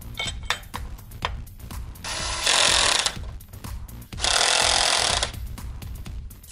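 A power tool running in two loud bursts of about a second each, an even whirring hiss that starts and stops abruptly, with sharp tool clicks and background music under it.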